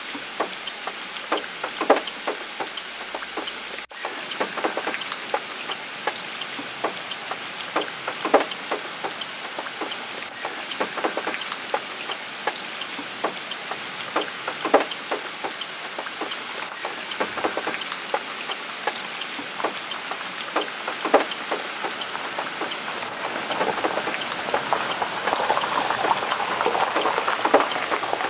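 Steady rain falling, with individual large drops ticking sharply on a nearby surface. It grows a little louder near the end.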